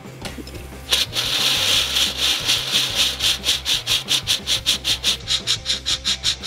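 Homemade hydrogen-peroxide rocket engine with potassium-permanganate catalyst firing. It starts about a second in with a sudden loud hiss of vapour from the nozzle, which soon breaks into rapid pulses, about five a second, because the small electric pumps feed the fuel in spurts rather than evenly.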